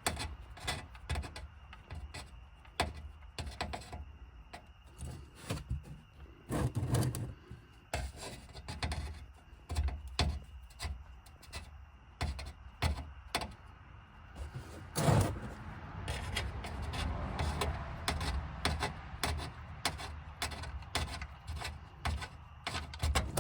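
Irregular clicks, knocks and rubbing of a wrench on the oil drain plug of a car's oil pan as the plug is broken free and unscrewed for an oil change, with a couple of heavier thuds and a low hum underneath.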